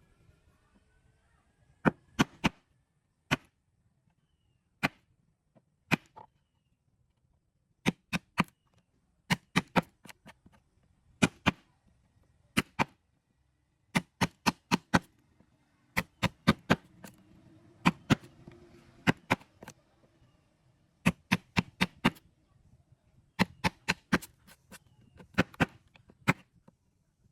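Hammer strikes on wood: sharp knocks, mostly in quick groups of two to four, with short pauses between groups.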